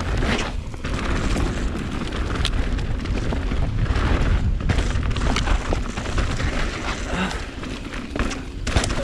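Mountain bike riding down a dirt downhill trail: a constant low rumble of wind buffeting the microphone, with tyres on dirt and many sharp clicks and knocks as the bike rattles over bumps.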